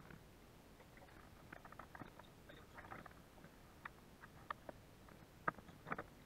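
Faint scattered clicks and taps as a landing net and a freshly caught pike are handled aboard a fishing kayak, with two sharper knocks near the end.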